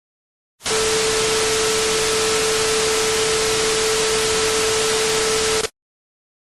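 Television static: an even hiss with a steady hum running through it, starting about half a second in and cutting off suddenly near the end.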